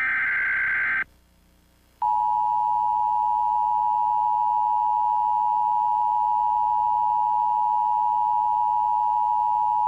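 Emergency Alert System tones: the last of the SAME header's digital data bursts, a harsh buzz about a second long, then after a second's pause the EAS attention signal, a steady two-note tone held for about eight seconds. The attention signal announces that an emergency warning message is about to be read.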